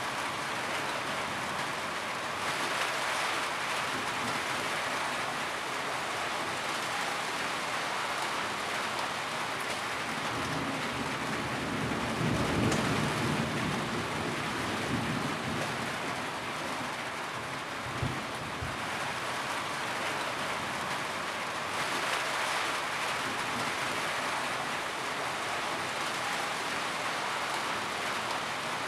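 Steady rain falling, a dense even hiss of drops. A low rumble swells about twelve seconds in, and there is a brief low thud a few seconds later.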